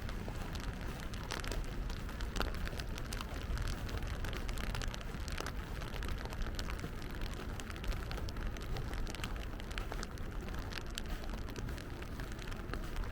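Steady rain with many close, individual drops ticking sharply, over a constant low rumble.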